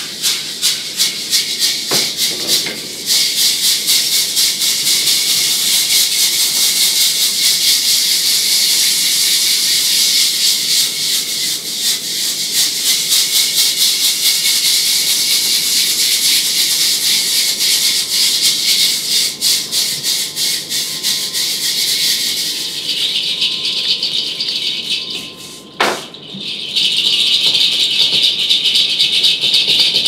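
Hand-held wooden rattles shaken rapidly and continuously, a dense, hissy rattling. Near the end it dips briefly with a single sharp knock, then the shaking resumes with a thinner tone.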